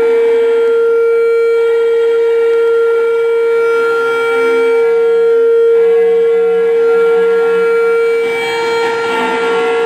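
Live electronic noise music: a loud, steady drone tone held throughout, with fainter higher tones above it and lower tones that shift in pitch around it.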